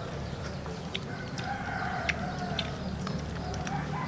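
A rooster crowing, one drawn-out call through the middle, over a string of sharp clicks from crab shells being cracked and picked apart by hand.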